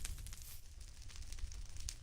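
Wood fire crackling in a fireplace: scattered sharp pops over a low rumble.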